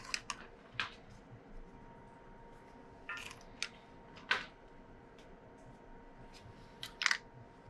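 Hard plastic alphabet letters clicking and clattering as they are set down on the steel cutter discs of a shredder that is not running. The taps are light and spread out, with a louder double click near the end.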